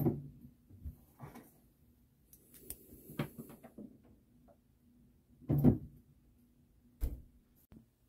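Light clicks and scrapes of a small screwdriver working a tight rubber O-ring onto a brass faucet cartridge, with a louder short sound just past halfway and a sharp click near the end.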